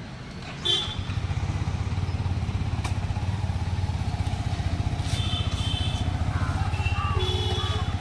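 Motorcycle engine starting less than a second in, then idling steadily with a fast, even beat.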